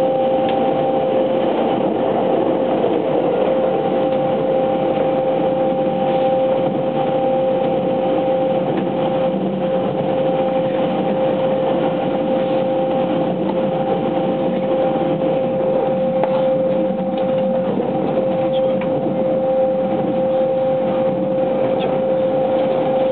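Running noise inside a JR West 683 series 2000 sub-series limited express car at steady speed in a tunnel: a loud, even rumble of wheels on rail with a steady two-note whine from the traction equipment.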